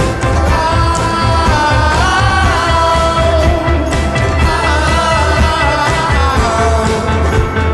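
Live band playing a song: a woman sings lead with a man joining in, over banjo, violin and a drum kit, with a heavy low end.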